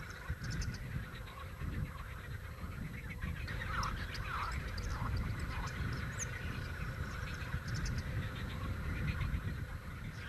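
Outdoor animal calls over a steady low rumble: a faint steady high trill runs throughout, and a short series of falling calls comes about four seconds in.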